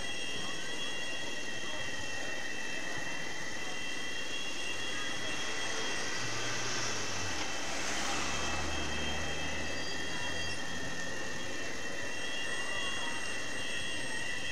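A car drives past close by: its engine and tyre noise swell to a peak about eight seconds in and then fade. Under it runs a steady background of street noise with a few steady high-pitched tones.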